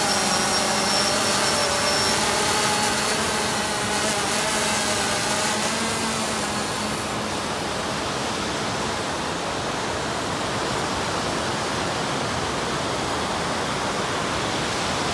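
DJI Phantom quadcopter's propellers humming in flight, a steady pitched drone that wavers slightly and fades away over the first six seconds or so as it carries a bait out to sea. After that, only a steady rush of surf and wind.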